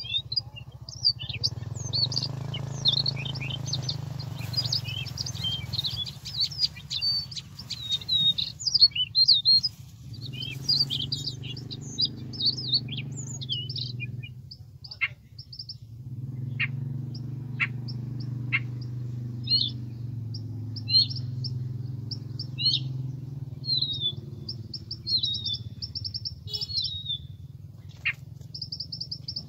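Siberian rubythroat song played from a small lure speaker: rapid, varied chirps and trills, with repeated pulsed phrases near the end. A low droning hum underneath comes and goes twice.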